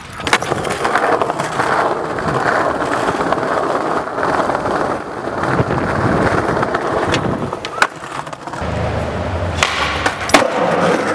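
Skateboard wheels rolling over brick paving, a steady coarse rumble, with sharp clacks of the board striking the ground. A few more loud board clacks come near the end.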